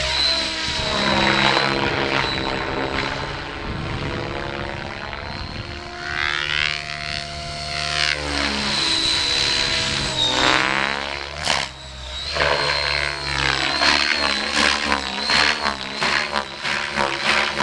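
Radio-controlled model airplane's motor and propeller running steadily as it flies passes, the sound sweeping and phasing as the plane moves past, with a steady high whine throughout.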